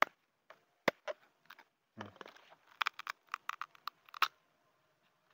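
A small knife strikes and cuts into the thick husk of a ripe cacao pod with scattered sharp knocks. About three to four seconds in comes a quick run of crisp cracks as the pod is split and pried open by hand.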